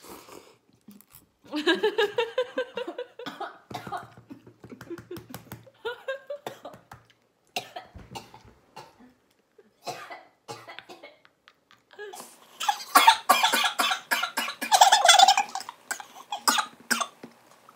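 Two women coughing and laughing, choking on chili-hot noodles. Scattered coughs and giggles give way about twelve seconds in to a loud fit of harsh coughing and laughter.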